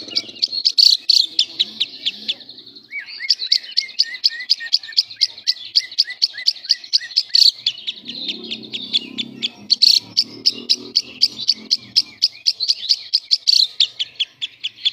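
Lovebird singing in the fast, chattering 'semi konslet' style: long runs of shrill, rapid chirps, several a second, with a brief pause about three seconds in.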